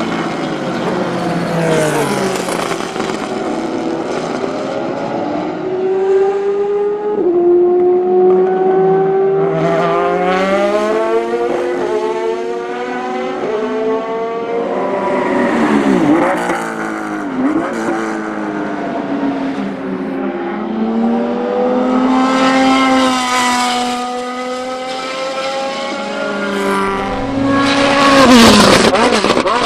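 GT and Le Mans prototype race cars passing one after another at speed, engines revving up through the gears with rising pitch, the pitch dropping as each car goes by. The loudest pass, near the end, is a Ferrari F430 GT race car.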